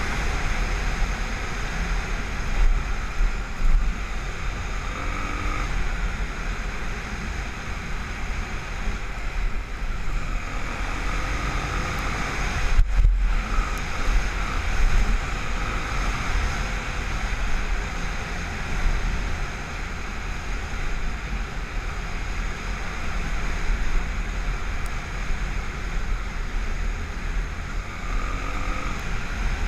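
Wind buffeting the microphone over surf, with the Honda XR250 Tornado's single-cylinder four-stroke engine running faintly beneath, its pitch rising and falling a few times. The sound drops out briefly near the middle.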